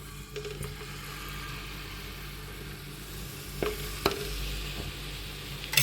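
Ghee sizzling steadily in a hot pan with a block of jaggery melting in it, with two light knocks about three and a half and four seconds in.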